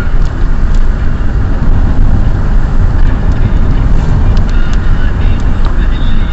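Steady low rumble of a car driving on a wet road in rain, heard inside the cabin, with a few faint ticks over it.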